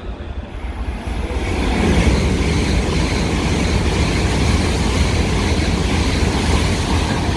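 E7/W7-series shinkansen passing through a station at about 180 km/h without stopping: a rushing noise that builds over the first two seconds and then stays loud as the cars go by.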